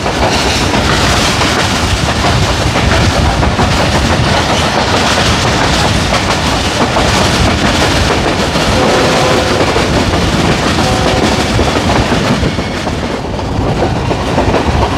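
Passenger train running along the line, heard from aboard: the steady, loud noise of the coaches' wheels on the track and the rattle of the moving train. A faint brief whine sounds about nine seconds in.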